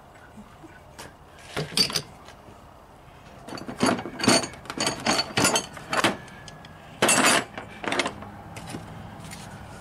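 Metal hand tools clinking and clattering as they are picked up and set down on a vehicle's fender and engine bay: a couple of sharp knocks about two seconds in, a quick run of clanks from about three and a half to six seconds, and a longer rattle near seven seconds.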